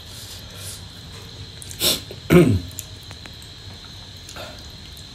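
A man's short sharp sniff or breath about two seconds in, followed by a brief falling grunt, over a faint steady high whine.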